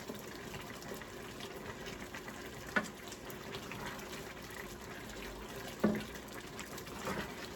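Liquid bubbling in a pot on the stove, a steady watery hiss, with short clinks of cookware about three and six seconds in.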